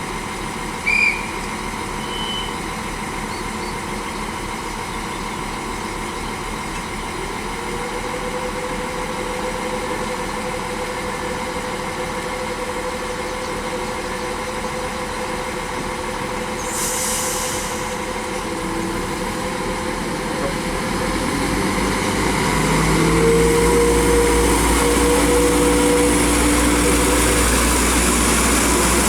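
Diesel train engine running steadily, with a short burst of compressed-air hiss about two-thirds of the way through, then growing louder as new engine tones come in. A brief high chirp sounds about a second in.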